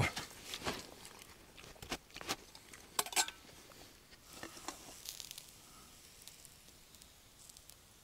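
A spoon clinking and scraping against a metal bowl while eating, a quick run of sharp clicks in the first three seconds, then only a few faint taps.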